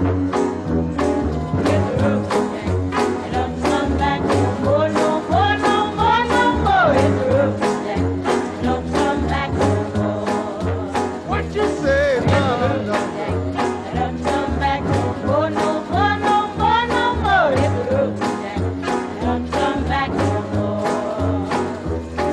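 Background music: an upbeat song with a steady beat and a bass line, and a melody that slides in pitch over it.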